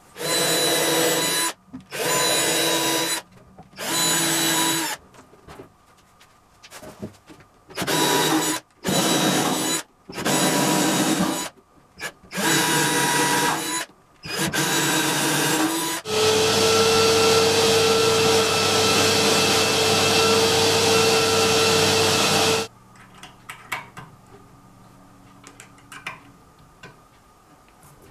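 Handheld power drill working into the carpeted MDF baffle at the edge of the subwoofer cutout. It runs in about eight short bursts of a second or so, then one steady run of about six seconds that stops sharply.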